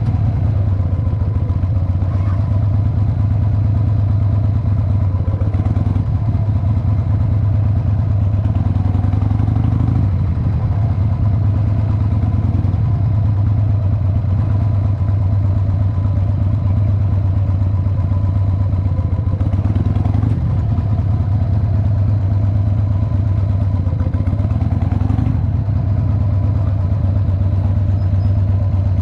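Cruiser motorcycle engine running steadily at low revs while riding slowly, a continuous low engine note.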